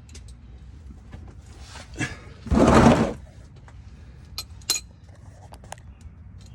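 Metal tools clinking and clicking as a socket and ratchet are handled under a truck, with a louder rattling scrape lasting about half a second, about two and a half seconds in.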